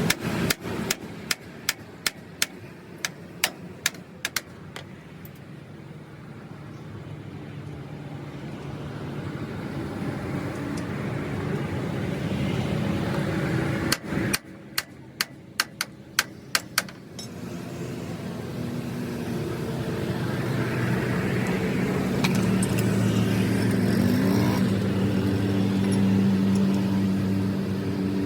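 A run of sharp knocks near the start and another about halfway through, over a low background hum; then an engine running, growing louder over the last ten seconds.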